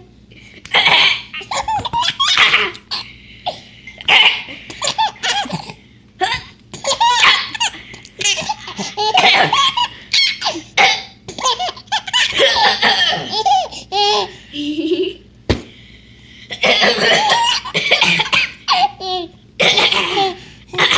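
A baby laughing in repeated short bursts of belly laughter, set off by an older child's fake coughs between the laughs.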